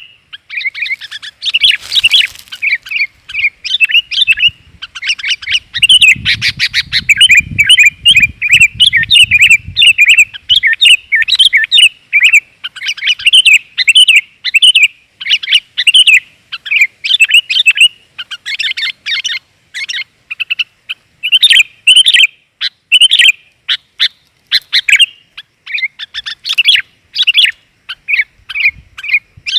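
Sooty-headed bulbul (kutilang) calling non-stop, a dense run of short, loud chirps. This is the female's call, used as a lure to draw in males.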